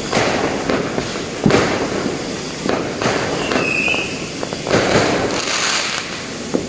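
Aerial fireworks bursting and crackling continuously. Sharper bangs come about a second and a half in and again near five seconds, with a short whistle near the middle.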